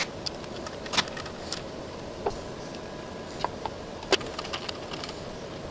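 Clicks and light knocks of a small screwdriver and a 3D-printed plastic pump housing being handled and pressed on a bench, the two loudest knocks about a second in and about four seconds in, over a steady background hum.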